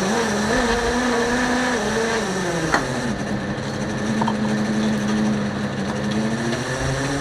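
Fishing boat's engine running steadily under load, its hum dipping in pitch a little about two and a half seconds in and then holding, with one sharp knock near the middle.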